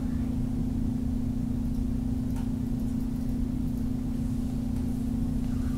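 Steady background hum: one constant low tone over a low rumbling hiss, unchanging throughout.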